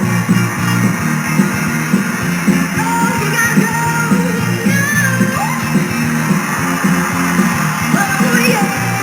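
Rock music with a singing voice and guitar over a steady beat.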